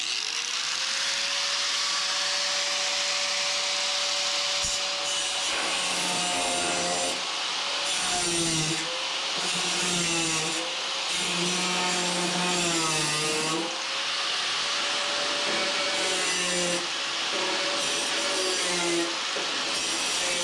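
A 4.5-inch angle grinder with a cutoff wheel spins up, runs free for a few seconds, then cuts into a metal door threshold. Its motor pitch dips again and again as the wheel bites, and recovers in between.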